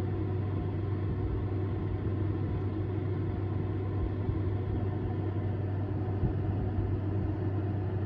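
Perfect Aire window air conditioner running: a steady low hum under the even rush of its fan.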